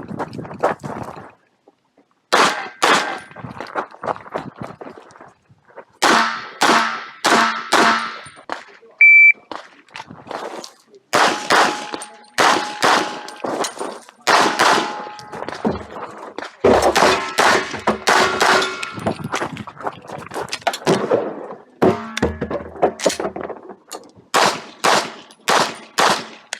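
A string of many 9 mm pistol shots from a Glock 45, fired singly and in quick pairs with short pauses between groups, several followed by the ring of hit steel targets. A short electronic beep sounds about nine seconds in.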